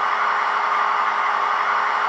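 Sound decoder in an H0-scale model of an ÖBB 2143 diesel locomotive playing its recorded T12c twelve-cylinder diesel engine sound, idling steadily with the locomotive at a standstill. It comes through the model's small loudspeaker, thin with almost no bass and a faint steady hum.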